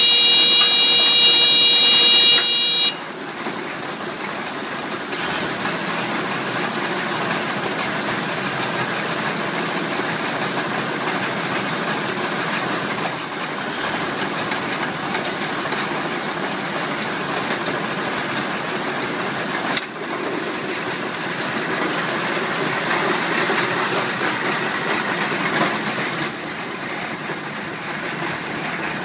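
Tractor-driven RHB0870 round hay baler running on test: a steady mechanical clatter and rattle of its rollers and drive, with the tractor engine running underneath. A loud steady high tone lasts about the first three seconds and then stops abruptly.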